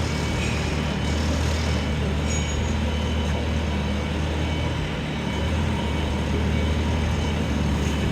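A steady, low motor-vehicle engine drone that holds an even level throughout.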